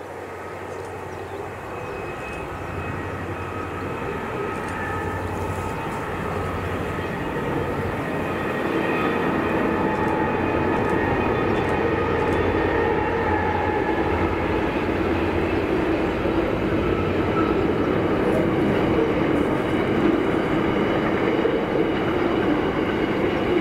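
Diesel-hauled freight train approaching, its locomotive running with a low hum and a steady higher whine. It grows louder over the first eight seconds or so, then holds steady.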